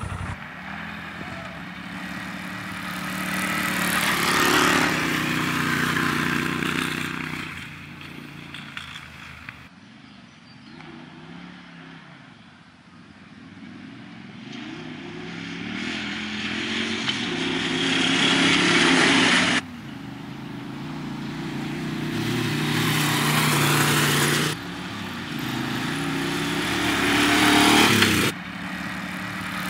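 Motorcycles accelerating hard in drag runs, engines revving up and getting louder as they approach and pass close by. Several short runs follow one another, each cutting off suddenly.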